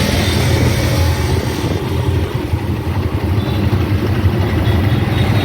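Auto-rickshaw engine running with a steady low hum under road noise.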